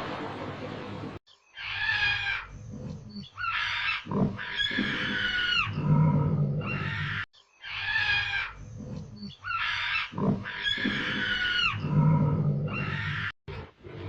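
Animal calls: a sequence of high, squealing cries with falling pitch and lower-pitched calls, about six seconds long, heard twice in a row with short gaps between.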